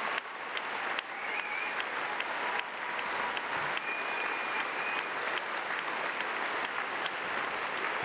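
Audience applauding steadily: a dense crackle of many hands clapping.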